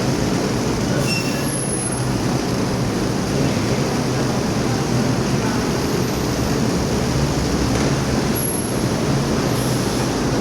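Paper core loading and unloading machine running: a steady, loud mechanical din with a few brief high-pitched squeaks, about a second in and again near the end.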